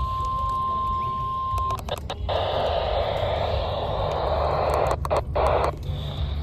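NOAA Weather Radio test broadcast heard through a receiver: a steady single alarm tone that cuts off about a second and a half in. A few clicks follow, then several seconds of radio static hiss with two brief dropouts near the end, over a low hum.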